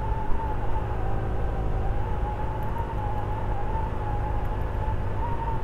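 Yamaha NMax 155 scooter riding at cruising speed: a steady low rumble of engine and wind, with a steady high whine that wavers slightly in pitch.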